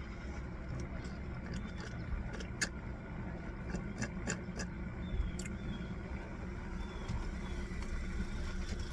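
Steady low engine rumble of a car idling, with scattered small clicks over it.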